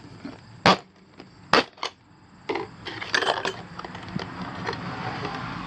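Handling noises: a few sharp clicks and knocks in the first couple of seconds, then a stretch of rustling with small scattered clicks.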